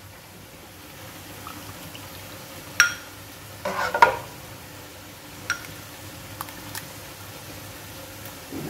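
A metal ladle clinking and knocking against a metal pot and a bowl while thick milk is ladled out: a ringing clink about three seconds in, a cluster of knocks near four seconds, then a few light taps.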